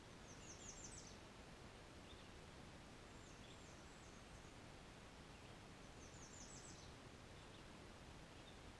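Faint songbird song: three short high-pitched phrases about three seconds apart, each a quick run of descending notes, over a steady low hiss.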